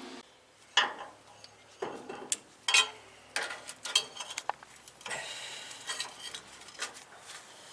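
A series of light metal clinks and knocks at irregular intervals, from metal parts being handled and set against a trailer's steel frame.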